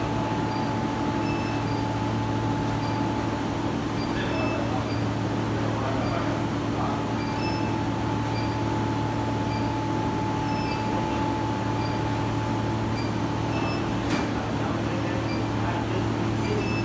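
Steady hum of the granulating machine's water chiller running, with a constant mid-pitched tone over a low drone, kept on so the crucible can cool after the induction power is switched off. A brief click sounds about fourteen seconds in.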